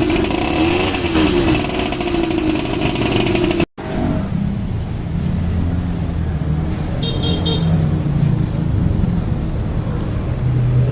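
Small two-stroke engine of a motorized bicycle with a tuned expansion-chamber exhaust running, its pitch wavering up and down. The sound cuts out abruptly a little under four seconds in, then the engine continues with a lower, rougher note. A brief high tone comes about seven seconds in.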